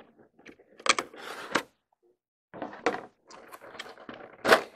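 Clear plastic lid being worked loose and pulled off a black plastic figure tray: scattered plastic clicks and rustles, with a louder snap near the end.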